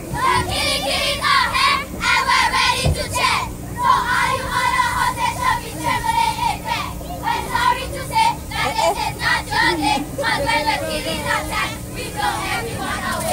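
A squad of young cheerleaders chanting a cheer together in rhythm, many voices at once.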